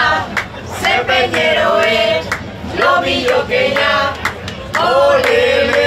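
A group of people singing together, with long held notes, and hand clapping in time about twice a second.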